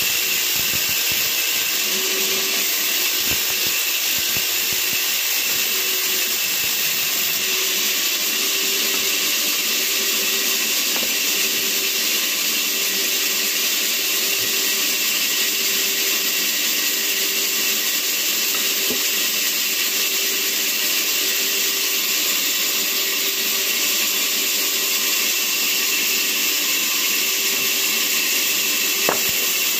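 Large vertical band saw running steadily while its blade rips a log lengthwise, a dense, even mechanical noise with a faint tone pulsing about once a second. A short knock comes near the end.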